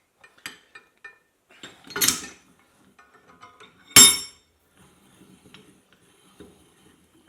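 Steel vise and stand parts clinking and knocking as they are handled and fitted, with two louder metal strikes about two and four seconds in, the second a sharp ringing clang.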